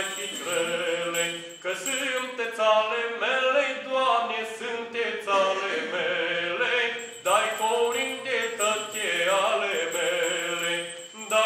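A man singing a Romanian colind, a Christmas carol, a slow melody in long held phrases.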